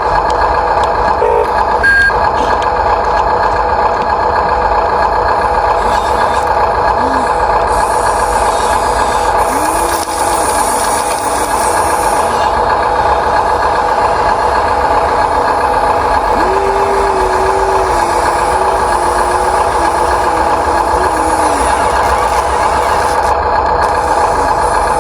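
Small electric motors and gearboxes of radio-controlled toy-scale construction machines whining steadily. A lower, wavering motor tone comes in briefly about ten seconds in and again for several seconds past the middle.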